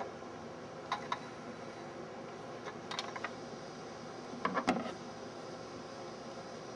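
A few light clicks and taps of handling at a sewing machine: a pair about a second in, a small group near three seconds and a louder group a little past halfway.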